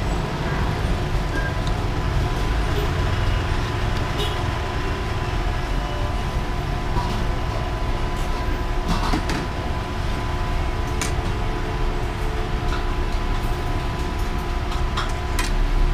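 Steady low rumble of road traffic and vehicle engines with a constant mechanical hum, broken by scattered light clicks.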